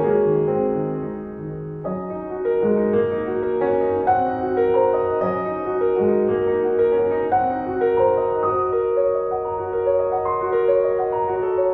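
Background music: a gentle piano piece playing a melody over held chords.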